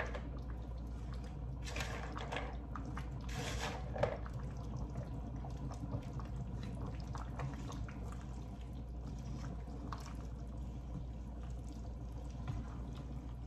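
Green beans tipped into a large pot of curry broth, splashing in about two and three and a half seconds in, followed by a wooden spoon stirring through the liquid with soft sloshing.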